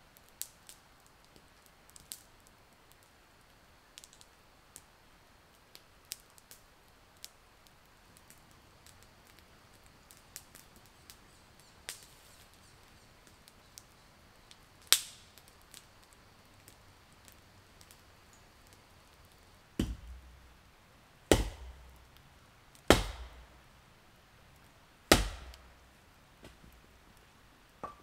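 Campfire crackling with scattered small pops, then four heavy chopping blows into wood in the second half, about a second and a half apart.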